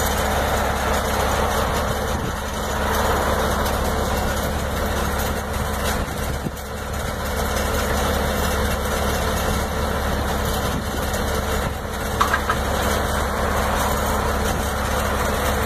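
Truck engine idling steadily, with a deep low hum.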